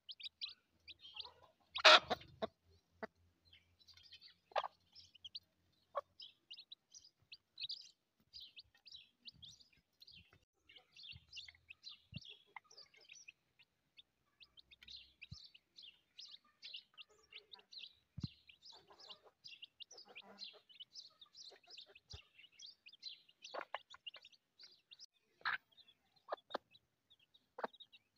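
A brood of newly hatched chicks peeping constantly, a rapid patter of short high chirps. A few sharp knocks stand out, the loudest about two seconds in.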